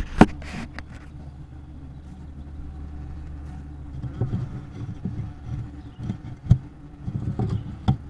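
Honeybee colony humming steadily inside a wooden hive box, heard close on a small action camera, with knocks and low bumps as the camera is handled against the wood: a sharp knock right at the start and another about six and a half seconds in.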